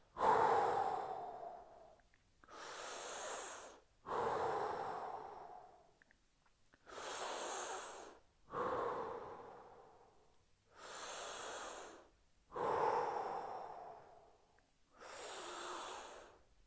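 A man's slow, deep, audible breathing, paced through a held stretch. There are about four full breaths in and out, each taking roughly four seconds, and each stronger breath starts suddenly and fades.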